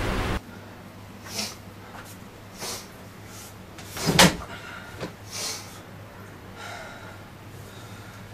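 Music cuts off abruptly just after the start, leaving a quiet room with a few short, hissing breaths. About four seconds in there is one sharp thump as a person drops heavily onto a bed.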